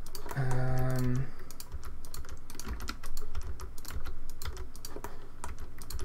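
Computer keyboard keys and mouse buttons clicking irregularly, several clicks a second, as shortcuts and mouse actions are entered in 3D software, with a short steady hum about half a second in.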